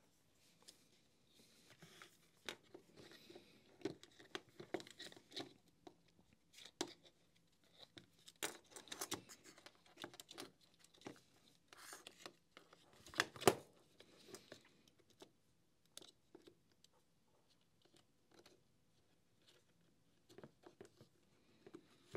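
Faint handling noises of a cordless Makita heat gun being reassembled: wires and parts pressed into the plastic housing, with scattered light clicks and rustles and one sharper click about halfway through.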